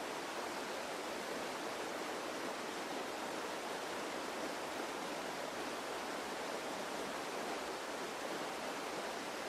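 Steady, even hiss of outdoor ambience with no distinct events.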